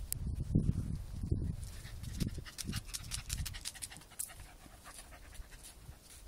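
Scottish terrier panting, with soft low thumps and rumble over the first couple of seconds.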